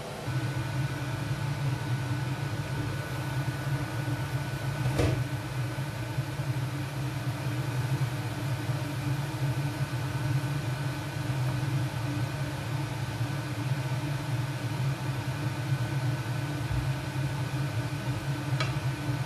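Steady low hum of a kitchen appliance's fan, with a thin high whine over it, while food cooks in a pan on the hob. A single sharp knock comes about five seconds in, and a light tap near the end.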